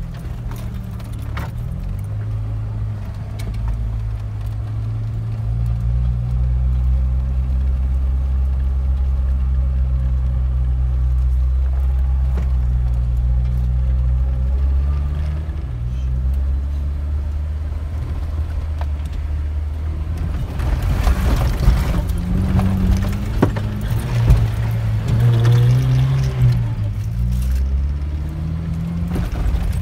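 Jeep engine running at low speed on a rough dirt trail, heard from inside the cab, its note rising and falling with the throttle. From about two-thirds of the way through, loose rattles and knocks join in as the vehicle jolts over bumps.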